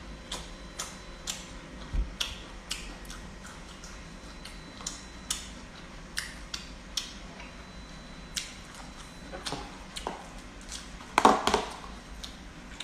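Close-up open-mouthed chewing and lip smacking: a run of short, sharp wet clicks at an irregular pace. A louder burst of noise comes about eleven seconds in.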